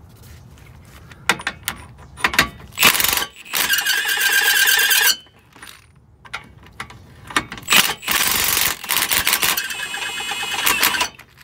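Milwaukee cordless impact wrench on a 21 mm socket hammering at the rear strut's lower mounting bolt in two long bursts, with socket clatter and knocks between them. The bolt breaks loose, but the nut on the back side spins with it, so the wrench keeps hammering without undoing it.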